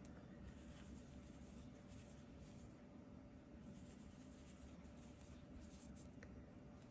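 Near silence: faint scratchy rustling of yarn drawn through stitches with a crochet hook, over a faint steady hum.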